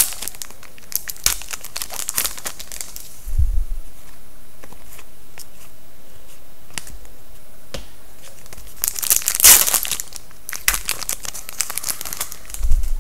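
Trading card pack wrappers being torn open and crinkled, loudest at the start and again about nine to ten seconds in, with small clicks from handling and a couple of dull thumps in between.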